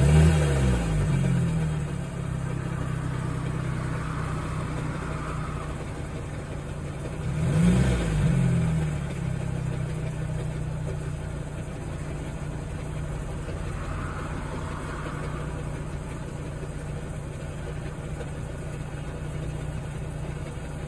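Audi A3 Sportback 8P engine idling steadily, with two brief revs that rise and fall in pitch, one at the start and one about eight seconds in. The car has an idle noise that stops when the clutch pedal is depressed.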